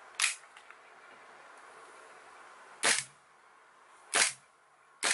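Tokyo Marui Colt MK IV Series 70 gas blowback airsoft pistol firing single shots: a sharp crack of gas and the slide cycling, near the start, then two more about a second apart in the second half, and a fourth just at the end.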